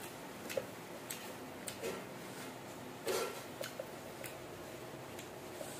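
Close-miked eating of battered fried squid rings: irregular soft crunches and wet mouth clicks, with the loudest a little past halfway.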